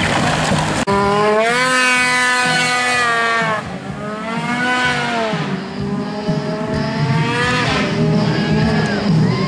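An engine revving hard, its whine rising and falling in long sweeps. It starts after a sudden break about a second in.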